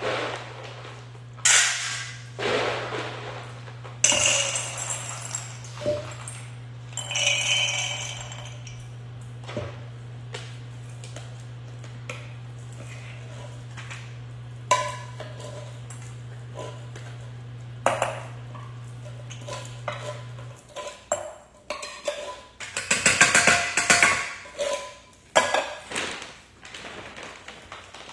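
Clinks and scrapes of metal as dog food is dished into stainless steel dog bowls, scattered through the stretch. A steady low hum stops about two-thirds of the way through, and a louder noisy stretch follows near the end.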